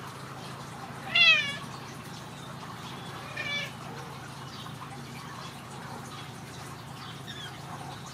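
Ragdoll cat meowing twice over a steady low hum: a loud call falling in pitch about a second in, then a shorter, quieter one about two seconds later.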